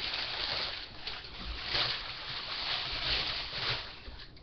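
Crumpled brown packing paper rustling and crackling as it is pulled out of a cardboard guitar box, with a few louder swells.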